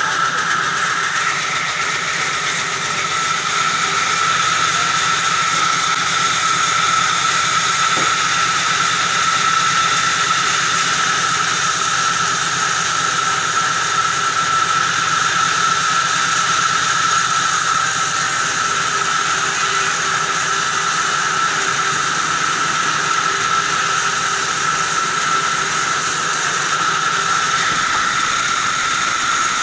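Vertical band saw cutting lengthwise through a short log: a steady machine noise with a high, steady whine from the blade. Near the end the low hum drops away.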